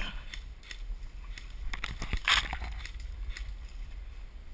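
Rustling and snapping of woodland brush and leaves as a player moves, in scattered short clicks with one louder crackling rustle a little after two seconds in. A low rumble of wind buffets the camera's microphone.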